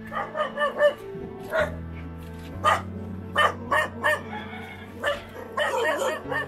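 A dog barking over and over, short sharp barks with a quick run of them near the end, over background music with steady held notes.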